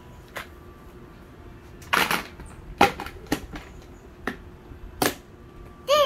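About six sharp knocks or clicks, irregularly spaced, the one about two seconds in a little longer than the rest.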